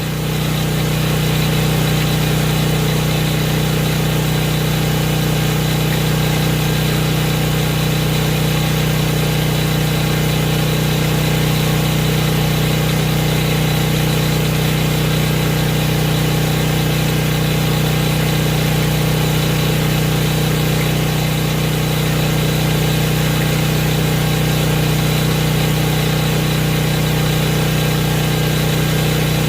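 Harbor Freight electric angle grinder running steadily at a constant pitch.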